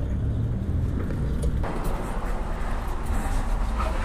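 Low rumble of a 2014 Harley-Davidson Iron 883's air-cooled V-twin as the motorcycle rolls slowly. The higher hiss cuts off abruptly about a second and a half in, while the low rumble carries on.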